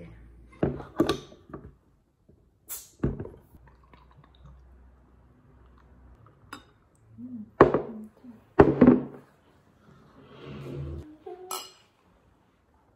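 A series of separate knocks and clinks of hard objects being handled and set down, the two loudest about a second apart near the middle, with a brief scuffle near the end.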